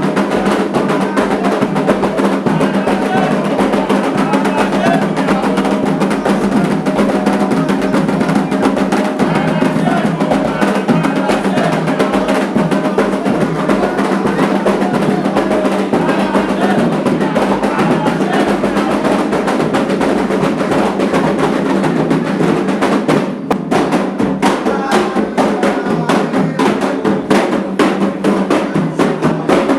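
Candomblé ritual music: fast hand drumming on atabaques with voices singing, the drum strokes standing out more sharply in the last few seconds.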